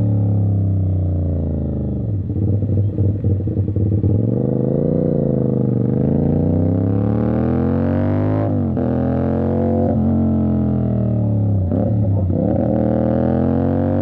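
CFMOTO 450SR's parallel-twin with a 270° crank running through an Avionic aftermarket exhaust while riding, the revs rising and falling. The pitch falls over the first two seconds into a rough, uneven burble as the revs drop, then climbs again; it drops sharply about eight and a half seconds in and again near twelve seconds, each time climbing back up.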